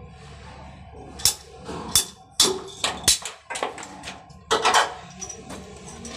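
Red ratchet-type PP-R pipe cutter being squeezed through white PP-R plastic water pipe: a string of sharp, separate clicks and snaps as the blade ratchets through, with a quicker cluster of clicks near the end.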